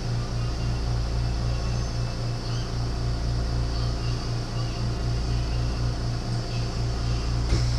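Steady low machine-like hum that throbs about five times a second, with a faint hiss over it; a single sharp click about seven and a half seconds in.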